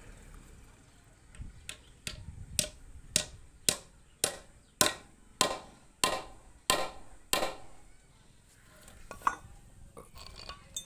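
Hammer striking, about eleven steady blows roughly two a second, each with a short ring, followed by a few lighter knocks near the end.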